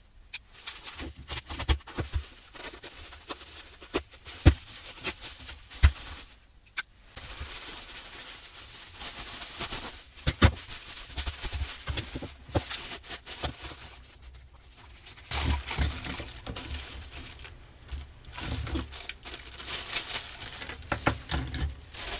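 Bubble wrap and plastic packaging crinkling and rustling as a package is unwrapped by hand, with sharp clicks and knocks as the plastic paint edger and its rollers are handled and set down on the bench.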